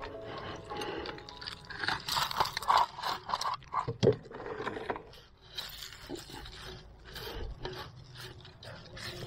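In-shell peanuts and sunflower seeds being scooped and spread by gloved hands over dry dirt and leaves: irregular scraping, rustling and crunching, with one sharp knock about four seconds in.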